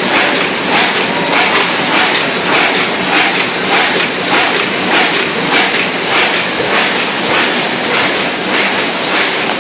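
Brausse automatic die-cutting machine running, a steady mechanical din with a rhythmic clatter of about two strokes a second.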